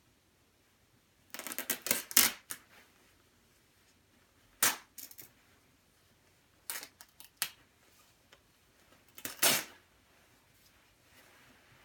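A black down jacket's nylon shell and seams being torn apart by hand, stitches snapping in short bursts of sharp pops. There are five bursts, the loudest about two seconds in and near the end.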